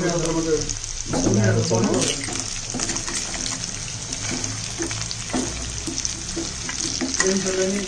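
Pork pieces coated in ground masala sizzling as they fry in oil in a wok, with a ladle stirring and scraping through them.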